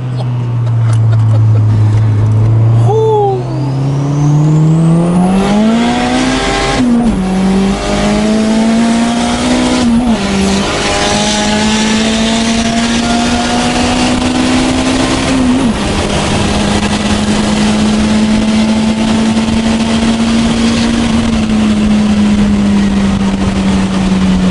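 Turbocharged Honda B18 four-cylinder engine of an Acura Integra, heard from inside the cabin while accelerating hard. The revs climb twice, with short breaks and drops in pitch about seven and ten seconds in, then hold at a steady pitch and ease off slightly near the end. The engine is running on three cylinders, with low compression on cylinder one.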